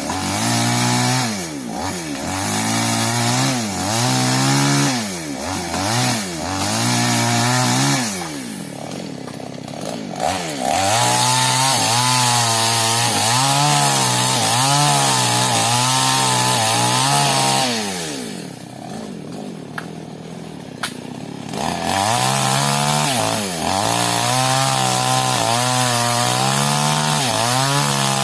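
New West two-stroke chainsaw revving up and down several times, then held at full throttle with its pitch wavering as it cuts into sengon wood. It drops back to idle for a few seconds about 18 seconds in, then goes back to full throttle and cuts again.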